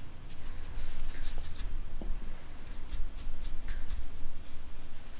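Paintbrush bristles stroking acrylic paint onto paper: soft brushing rasps in several short runs, over a steady low rumble.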